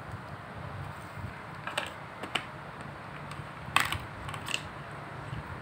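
A few scattered light plastic clicks and taps from small toy pieces being handled in a plastic pet-carrier playset, the sharpest just under four seconds in.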